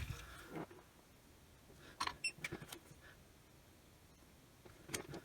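A few faint clicks and light metallic taps from small tools being handled at a soldering bench, a cluster of them about two seconds in, some with a short high ring, and one more near the end.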